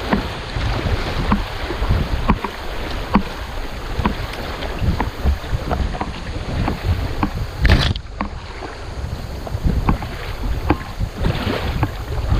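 Fast flood water rushing and splashing around a kayak running creek rapids, with wind buffeting the microphone and scattered knocks and splashes against the hull; one louder splash or knock about eight seconds in.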